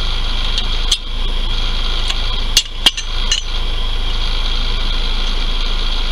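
A red high-lift farm jack being worked to raise a pickup truck with a flat tire. Its handle and ratchet give a few sharp metal clacks: one about a second in, then three close together around the middle. Under them runs a steady low hum and a high-pitched drone.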